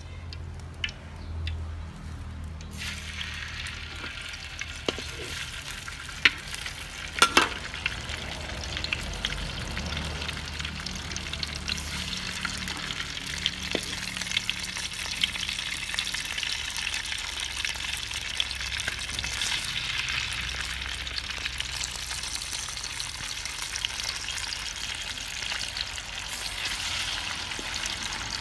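Small whole fish frying in hot oil in a steel wok, a dense sizzle that starts about three seconds in and grows louder and crackly. There are a few sharp knocks near the start of the frying.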